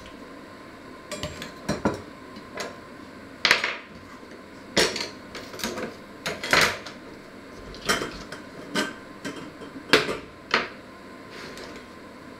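Kitchen knives and utensils clinking and knocking as they are picked up and set down on a wooden worktop and cutting board: an irregular series of a dozen or so sharp knocks.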